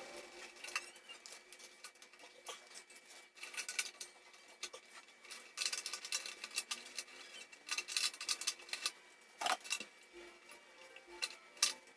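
Scattered light clicks, taps and scrapes of hand work on a circuit breaker and its wires, irregular and without a steady rhythm, over faint background music.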